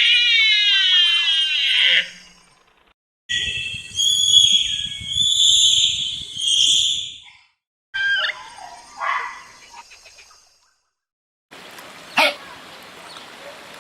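A run of short, separate animal-call recordings divided by brief silences: first a loud call that falls in pitch, then a burst of high squealing, chattering calls, then fainter calls, and finally a noisy stretch with one sharp click.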